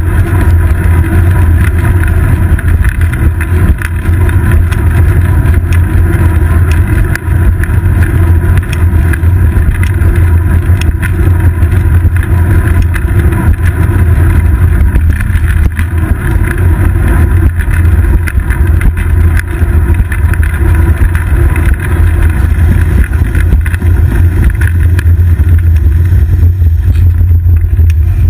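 Steady, loud low rumble of a road bike rolling on asphalt, with road vibration and wind buffeting picked up through a seat-post-mounted GoPro Hero 2.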